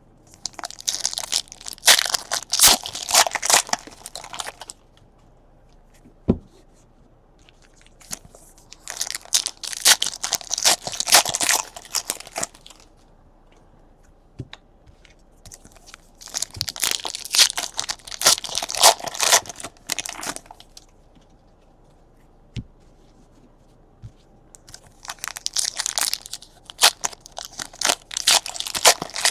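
Foil trading-card pack wrappers being torn open and crinkled in four bursts of several seconds each, with quiet gaps between.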